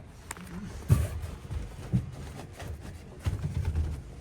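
A few short knocks and thumps, roughly a second apart, with low rustling and handling noise between them, as of car interior trim panels being moved and set in place.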